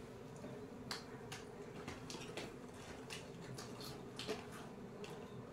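Plastic snack packet crinkling in the hand, a few short scattered crackles, over a faint steady hum.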